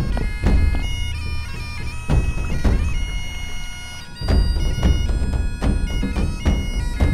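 Background music: bagpipes playing a tune over a steady drone, with a drum beat.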